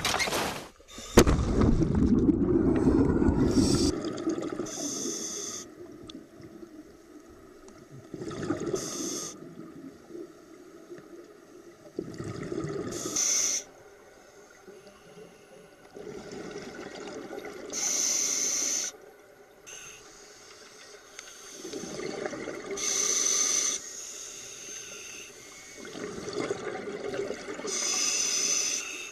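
Scuba diver breathing through a demand regulator underwater: a hissing inhale, then a bubbling exhale, repeating about every four to five seconds. A loud low rush of water comes about a second in and lasts about three seconds.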